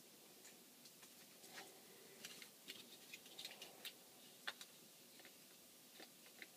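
Near silence in a small room, broken by faint, irregular light clicks and taps, most of them in the middle of the stretch, with one sharper click a little after the middle.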